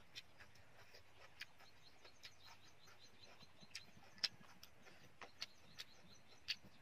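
Quiet eating sounds: irregular short sharp clicks and smacks from chewing and chopsticks handling food on a plate, the loudest a little past four seconds in, over a faint hiss.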